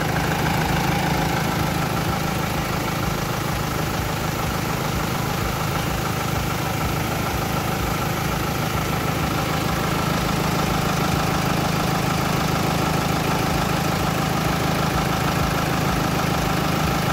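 Mitsubishi 4M41 3.2-litre four-cylinder diesel idling steadily, running again after a crank-but-no-start fault with its supply pump refitted and timed.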